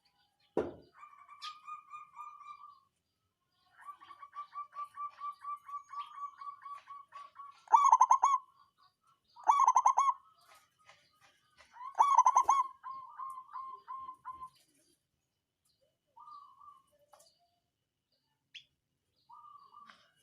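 Zebra dove (perkutut) cooing: runs of rapid pulsed notes with three loud bursts of song about eight, ten and twelve seconds in, then a few short notes.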